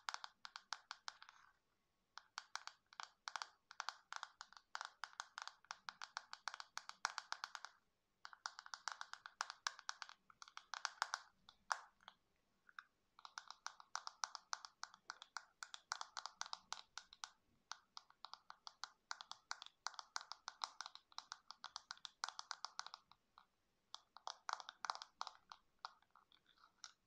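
Long fingernails tapping quickly on a hard orange plastic box, in runs of a few seconds broken by short pauses.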